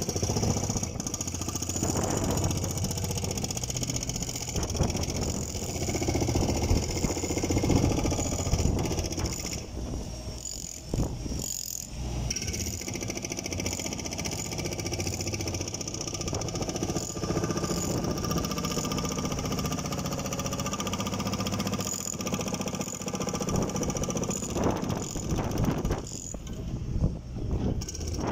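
Diesel engine of a JCB backhoe loader running steadily, with occasional knocks from the machine working on the roof.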